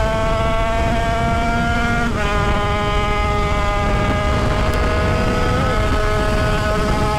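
Tuned 50cc two-stroke Derbi-engined supermotard at high revs under way. Its pitch climbs slowly, drops sharply about two seconds in as it shifts up a gear, then holds high, with wind rumble on the microphone underneath.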